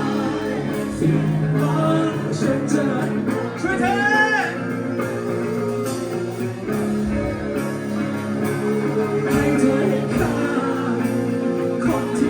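Live band playing a song: guitars under a sung vocal line, loud and steady.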